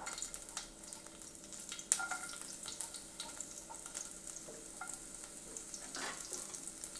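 Chopped ginger and garlic sizzling in hot leftover coconut oil in a kadai, with a steady hiss and a spatula clicking and scraping against the pan as it is stirred; one sharper knock comes about two seconds in.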